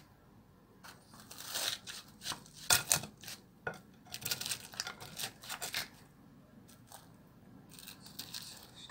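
A plastic slotted spatula cutting through a baked casserole's crisp breadcrumb crust and scraping on the glass baking dish: irregular crunchy scrapes, loudest about three seconds in.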